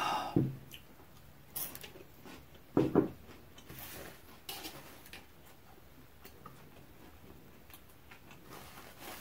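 One person's eating sounds: soft chewing and mouth clicks, with two louder mouth noises at the start and about three seconds in. A paper napkin rustles briefly near the end.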